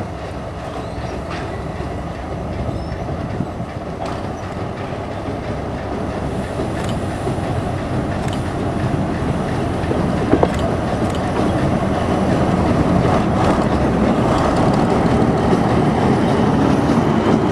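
A TU2 narrow-gauge diesel locomotive's V12 diesel engine running as the locomotive rolls slowly up to and past the listener, growing steadily louder. Occasional sharp clicks come from the wheels on the track.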